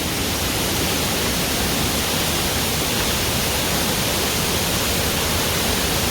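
Waterfall: water pouring down over rock in a steady, even rush.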